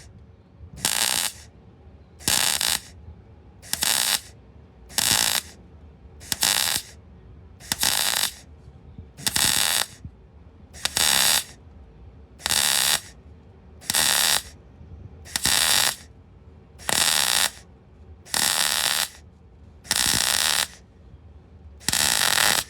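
Welding arc struck in short repeated bursts on thin car body steel: about fifteen crackling bursts, each under a second, roughly one every second and a half. This is stitch welding in short pulses so as not to burn through thin metal.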